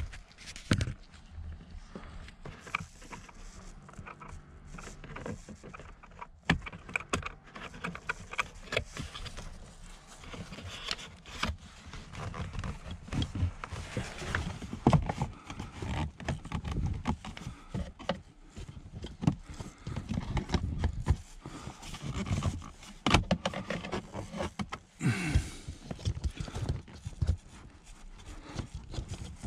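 Hands working on the plastic trim and cabin filter housing under a car's dashboard: irregular clicks, knocks and rustling of plastic parts being handled.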